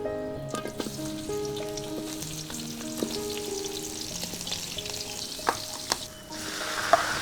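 Food frying in hot oil in a pan, with a steady sizzle and a few sharp clicks. Near the end the sizzle shifts to a lower, denser hiss.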